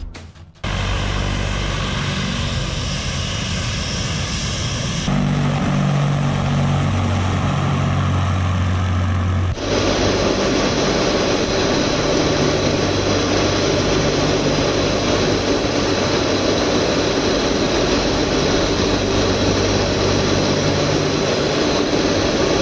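Tu-142 anti-submarine aircraft's turboprop engines and contra-rotating propellers, a steady loud drone with a constant low hum, heard from inside an aircraft in flight. The sound changes abruptly about five and about ten seconds in, then holds steady.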